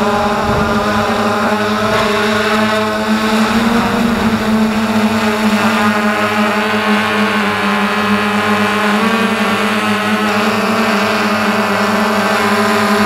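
Motors and propellers of a small Kin Wing model aircraft in flight, heard up close from its on-board camera: a loud, steady buzzing drone whose pitch shifts slightly as the throttle changes.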